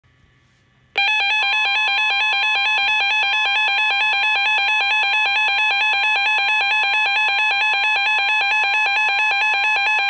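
NOAA weather alert radio sounding its tornado warning alarm: a loud, warbling electronic tone that rapidly switches between two pitches over a steady tone, starting about a second in. It signals that a tornado warning has been issued for the area.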